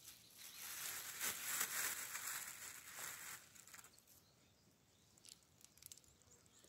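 Faint outdoor ambience: a soft rustling hiss for the first three seconds or so, then quieter, with a few faint clicks.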